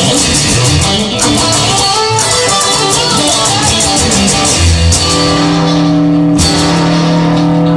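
Rock music led by guitar. About five seconds in, the busy playing gives way to a held chord that rings on.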